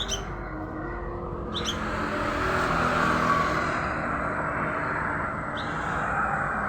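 Sooty-headed bulbul chick giving three short, high chirps (near the start, about a second and a half in, and near the end) over a steady background noise.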